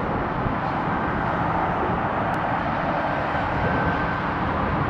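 Jet airliner engines running: a steady rumble and hiss, with a faint high whine in the middle.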